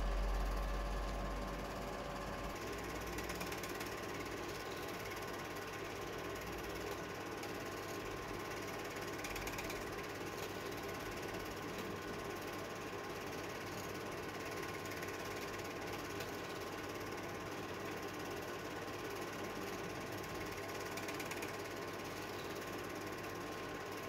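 Home-movie reel film projector running, its film-advance mechanism giving a steady, fast mechanical clatter as the silent film plays. A low rumble sits under it for the first couple of seconds.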